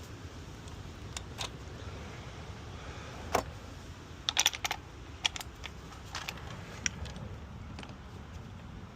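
Scattered light metallic clicks and taps, with a quick cluster about four and a half seconds in, as a 3/8 refrigerant line fitting and hand tools are handled, over a low steady rumble.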